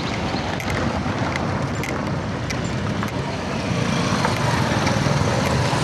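Road vehicle on the move: a steady engine and road rumble with light clicking rattles, growing a little louder about two-thirds of the way through.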